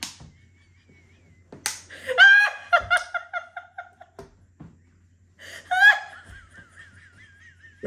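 A woman laughing hard in two high-pitched bouts. The second trails off into a thin, wavering squeak of breathless laughter. A few sharp knocks of hands on the wooden table come between the bouts.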